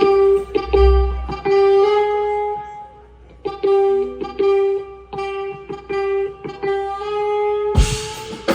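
Live band opening with an electric guitar playing a repeated single-note riff in short plucked phrases, pausing briefly about three seconds in. Near the end a drum hit with a cymbal crash comes in.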